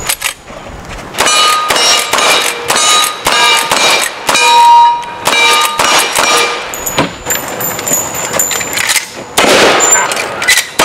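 Lever-action rifle fired in a rapid string at steel targets, each shot followed by the steel plate ringing. Near the end comes a broader, louder shotgun blast.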